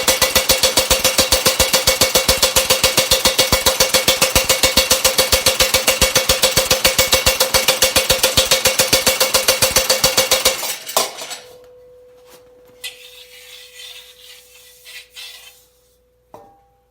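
Homemade power hammer pounding sheet steel (a 2 mm 4130 steel breastplate) in a fast, even run of about six blows a second. It stops about ten and a half seconds in, leaving a steady metallic ring and a few light knocks and a clink.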